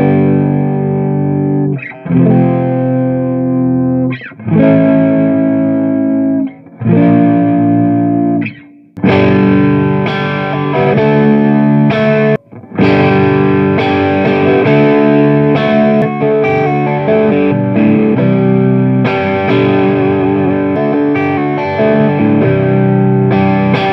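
Electric guitar played through an overdrive pedal at full drive into an amp, powered from an alkaline 9-volt battery. Big distorted chords are struck and let ring about every two seconds; about nine seconds in it turns to busier riffing with chords and single notes.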